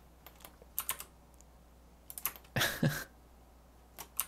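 Computer keyboard keys tapped in short irregular bursts, with a louder clatter of several keys about two and a half seconds in.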